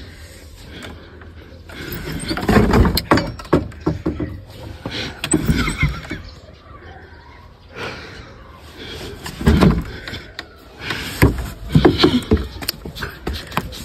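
A wooden house door being pushed and pulled back and forth, with repeated knocks and scrapes against its frame, mixed with an old woman's exclamations.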